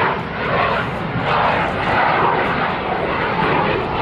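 McDonnell Douglas CF-18 Hornet in flight, its twin General Electric F404 turbofan engines making loud, steady jet noise as the fighter climbs.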